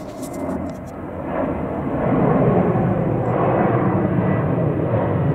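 Boeing 737-800's CFM56 turbofan engines at takeoff thrust as the jet climbs out overhead: a deep, steady jet rumble that builds over the first two seconds and then holds loud.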